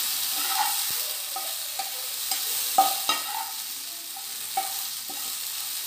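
Egg 65 balls being stirred and tossed in a sizzling non-stick frying pan with a steel spoon, which clinks and scrapes against the pan several times, most sharply about three seconds in.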